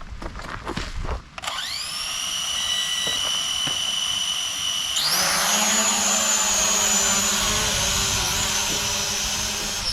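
Quadcopter drone's electric motors and propellers spinning up about a second and a half in, a steady high whine that jumps sharply higher about five seconds in as the drone is throttled up to fly.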